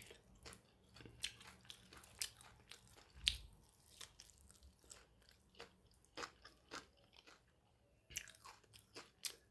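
Someone chewing crispy fried pakora: a run of short, sharp crunches at an uneven pace, the loudest about three seconds in.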